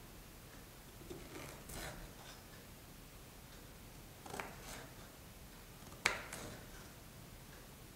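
Kitchen knife cutting through peeled fresh ginger and knocking on a wooden cutting board: a few quiet cuts about a second in, another around four and a half seconds, and the sharpest knock of the blade on the board at about six seconds.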